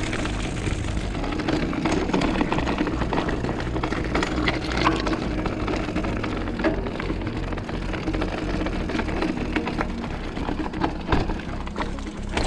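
Mountain bike rolling down a rocky gravel singletrack, its tyres crunching over loose stones and the bike rattling in a rapid stream of clicks and knocks, under steady background music.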